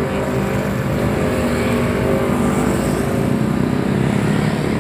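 Diesel intercity coach engines running as the coaches pull away, over steady road traffic noise.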